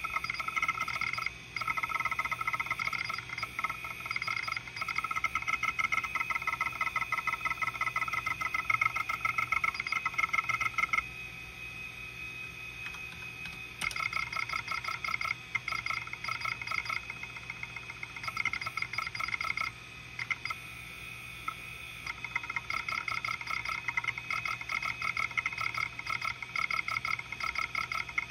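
Kalok KL-320 MFM hard drive running with its cover off: the spindle hums steadily while the head actuator seeks in long runs of rapid ticking chatter, stopping twice for a few seconds, about eleven seconds in and again around twenty seconds.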